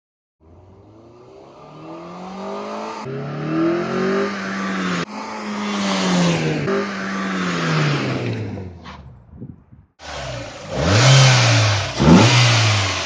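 Mazda MX-5 Miata four-cylinder engine revving up and back down again and again, in several short segments that cut in and out abruptly. After a brief gap near the end comes a louder stretch of quick blips.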